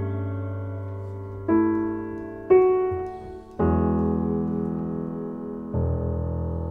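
Background piano music: slow chords, a new one struck every second or two and left to ring and fade.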